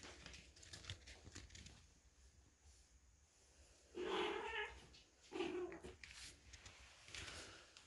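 A cat meowing three times, each call about half a second long, the first about four seconds in and the loudest. Faint ticks and scratches come before the calls.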